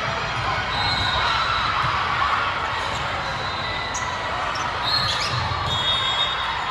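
Indoor volleyball in a gym, with sneakers squeaking on the court floor several times and the ball being struck or bounced over a steady murmur of spectators in a large hall.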